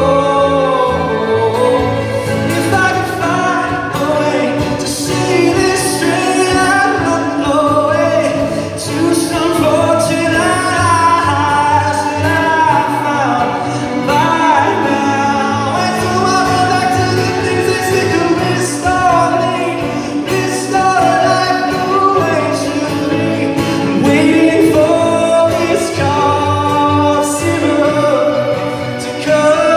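A male singer performing a song live, with sustained instrumental accompaniment.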